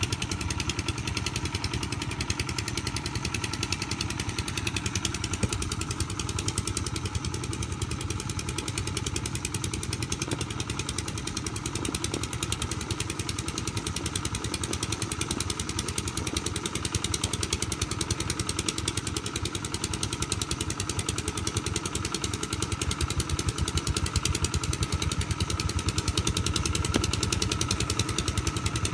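Single-cylinder diesel engine of a công nông farm truck running steadily, a little louder in the second half.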